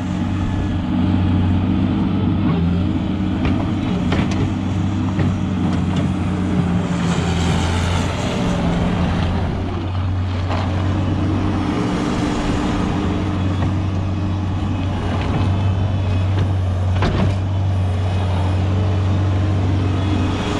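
Engine of a heavy machine running steadily at constant speed, with a few sharp knocks over it.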